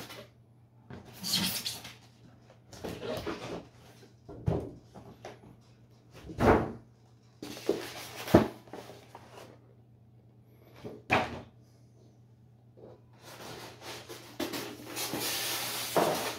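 Cardboard packaging and foam insert trays of a model train set being handled: rustling and scraping of the box lid and flaps, broken by several knocks as pieces are set down. A longer scraping slide comes near the end as a foam tray is moved.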